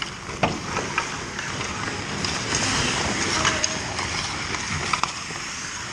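Ice hockey play: skate blades scraping and carving the ice, with scattered sharp clacks of sticks and puck, and indistinct voices of players in the rink.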